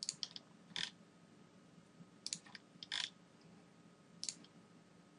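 Faint clicks of a computer mouse and keyboard: a quick flurry at the start, then about half a dozen single clicks spaced irregularly, as points are picked on screen.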